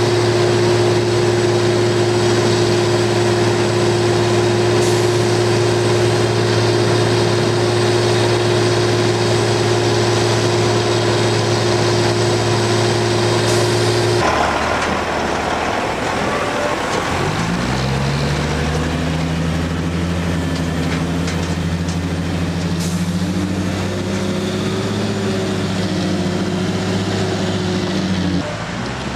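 Heavy diesel engines of a log loader and a logging truck at work. One steady engine note runs for the first half, then a different engine takes over, revs up a few seconds later and holds a higher, slightly wavering note while the loader lifts logs, dropping away near the end.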